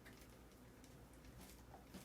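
Near silence: room tone with a low hum and a few faint small clicks.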